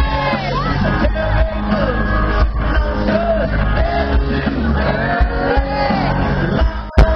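Live band playing with a singer's lead vocal over a strong bass, amid shouts from the crowd. A sharp crack cuts through near the end.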